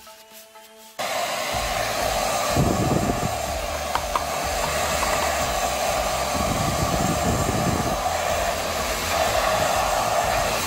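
Handheld hair dryer switched on about a second in, then blowing steadily: a whirring fan motor with a rush of hot air.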